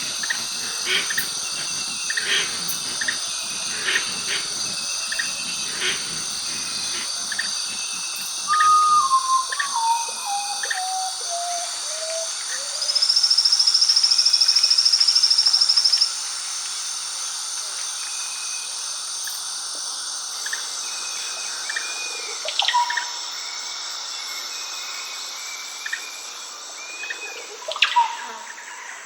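Amazon rainforest ambience: a steady high-pitched insect chorus with bird calls over it. About a third of the way in, a series of whistled notes steps down in pitch, followed by a loud, fast-pulsing high trill lasting about three seconds; short chirps and calls are scattered throughout.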